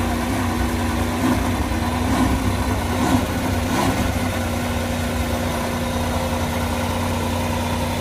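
Mercedes-AMG One's 1.6-litre turbocharged V6 hybrid engine idling steadily, with a few brief louder blips in the first half.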